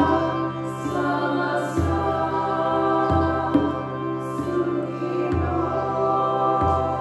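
A woman singing over a sustained drone, with a hand-held frame drum struck in a slow, even beat about once every second and a half.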